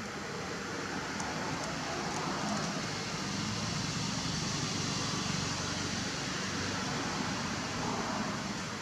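Steady outdoor background noise: an even hiss with a low rumble beneath, and no distinct event standing out.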